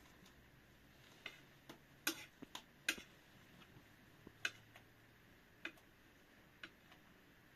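Spoon tapping and scraping against a plate of rice as food is scooped up: scattered light clicks at irregular intervals, with two louder ones about two and three seconds in.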